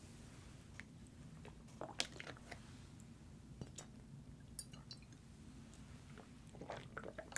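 Close-miked drinking sounds: a man swigging rum straight from the bottle, then drinking pineapple juice from a carton, with scattered wet mouth clicks and swallows. A few light knocks come from handling the bottle and carton.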